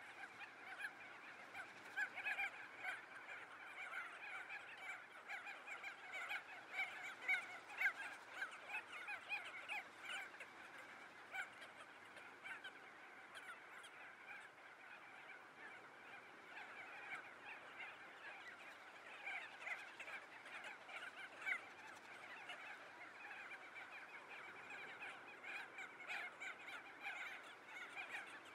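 A flock of geese honking, many calls overlapping in a continuous faint chatter with no pause.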